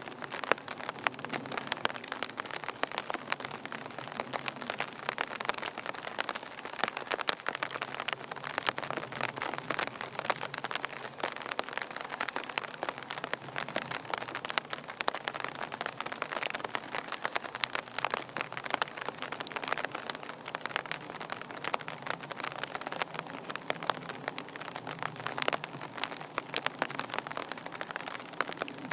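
Steady rain, with drops striking close by as a dense, irregular ticking that runs on without a break.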